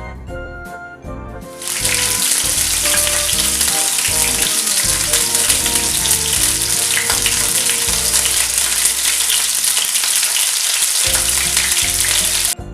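Flour-coated chicken wings frying in hot oil, a steady loud sizzle. It starts abruptly about two seconds in and cuts off suddenly just before the end, with background music under it.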